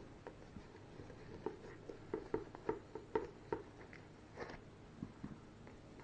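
Light, irregular clicks and soft rustles of a plastic headset being handled as its foam ear pad and earpiece are pulled out.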